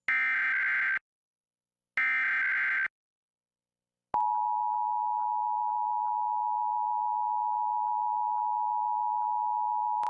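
Two bursts of Emergency Alert System SAME header data, a raspy digital screech about a second long each and a second apart, marking the start of an alert. After a short silence, a click about four seconds in begins the steady two-tone EAS attention signal.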